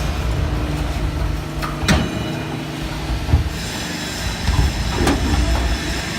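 Horizontal baler running: a steady low drone from the machine with sharp clanks about two seconds in, about three and a half seconds in, and about five seconds in. A higher whine joins about halfway through.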